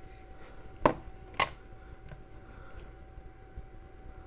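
Two sharp plastic clicks about half a second apart, from the lever of a component tester's ZIF test socket being worked to free a tested capacitor, with a few fainter handling ticks.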